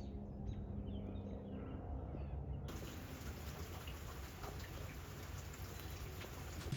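Outdoor dusk ambience with faint scattered chirping calls, then, after a cut about a third of the way in, a steady even hiss.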